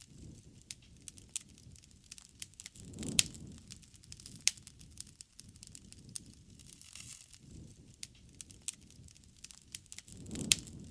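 Wood fire crackling: irregular sharp pops and snaps, with the low rush of the flames swelling a couple of times.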